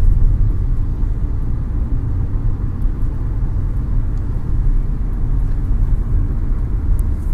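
Steady low rumble of a car driving at speed on a highway, heard from inside the cabin: tyre, road and engine noise.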